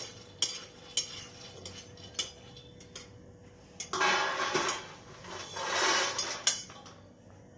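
Metal spatula clinking against an iron kadhai as roasted makhana (fox nuts) are scooped out into another vessel: a few sharp clinks, then two longer stretches of scraping and rattling about four and six seconds in.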